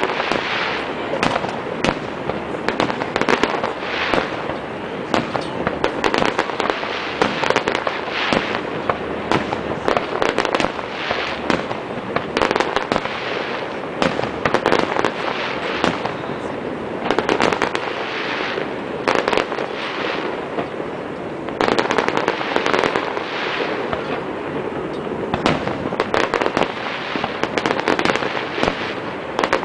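Fireworks display: a dense, unbroken run of overlapping bangs and crackles.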